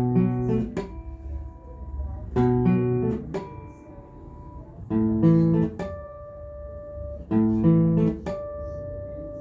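Acoustic guitar strumming chords in an instrumental passage of a song, one chord about every two and a half seconds, each left to ring on.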